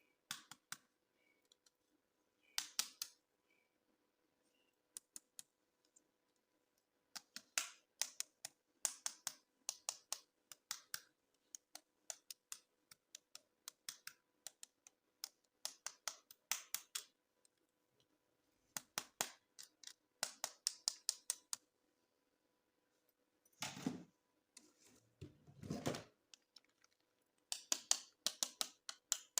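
Close-up handling of plastic toys and packaging: irregular runs of small, sharp clicks and taps with short pauses between them, and two longer scraping rustles about two-thirds of the way through.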